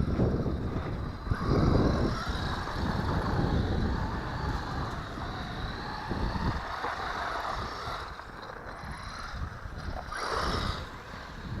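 Small 1/12-scale four-wheel-drive electric RC car running, its motor and drivetrain whining and surging louder about 1.5 seconds in and again near the end, over wind rumble on the microphone.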